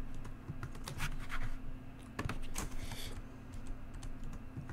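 Computer keyboard keys clicking in irregular short runs of typing, over a faint steady hum.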